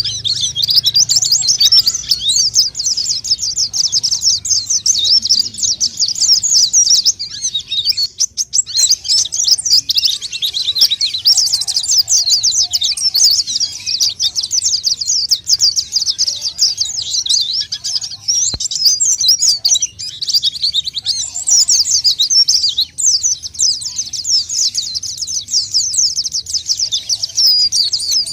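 White-eyes (pleci) singing vigorously, a rapid high twittering that runs almost without pause.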